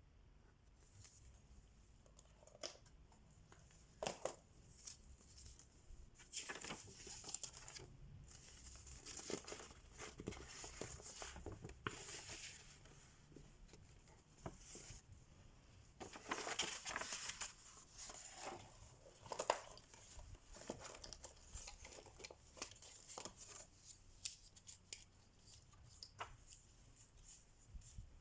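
Hands handling cross-stitch supplies: soft, irregular rustling and crinkling with scattered small clicks, busiest around the middle.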